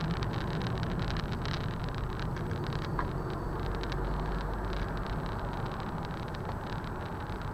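Inside a moving car: steady road and engine rumble with frequent small clicks and rattles as it drives along a lane.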